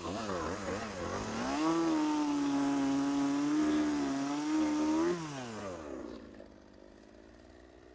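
Chainsaw engine blipped up and down a few times, then held at high revs for about three and a half seconds before the throttle is released and it winds down, going quiet about six seconds in.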